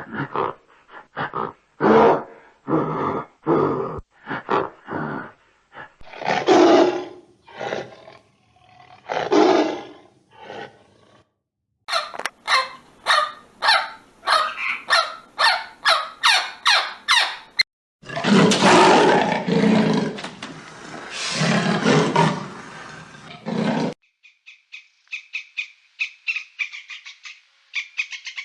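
Several different animals calling one after another, with hard cuts between them. First come repeated loud calls, then a fast rattling series of sharp pulses, then a rough, dense stretch. Near the end a quieter, rapid high-pitched chirping takes over.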